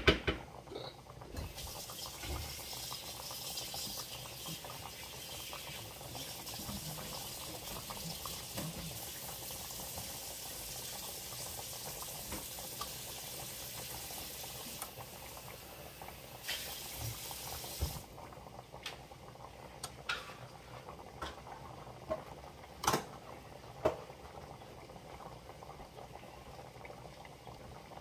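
Red wine braising liquid boiling hard in a stainless steel sauté pan as it reduces, with a steady bubbling hiss. The hiss cuts off suddenly about two thirds of the way through, leaving quieter bubbling with a few sharp pops.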